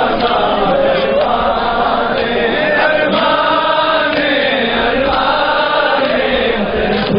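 A crowd of men chanting together in unison, a matam mourning chant, loud and unbroken.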